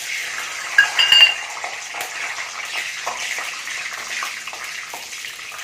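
Raw peanuts tipped into hot oil in a steel kadhai, the oil sizzling steadily, with sharp metal clinks about a second in. Then a metal spatula stirs and scrapes the nuts around the steel pan while the frying sizzle goes on.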